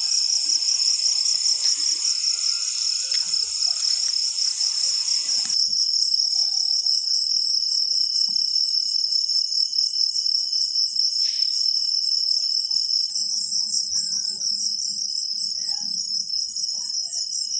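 A chorus of crickets chirping continuously: a dense, high-pitched, rapidly pulsing trill. About five and a half seconds in, the lower background hiss drops away abruptly, leaving the trill alone.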